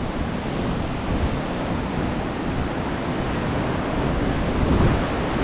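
Hurricane-force wind blowing in strong gusts: a dense, steady rushing roar with wind buffeting the microphone, swelling a little near the end.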